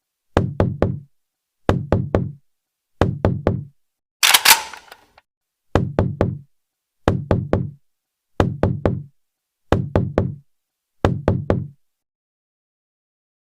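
Knocking in quick groups of three raps, repeated at an even pace about every 1.3 seconds; about four seconds in, one group comes with a brief rushing noise. The knocking stops near the end.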